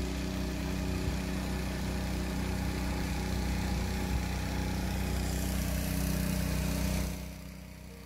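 Motorboat engine running steadily under way, with a hiss over it; the sound drops sharply about seven seconds in.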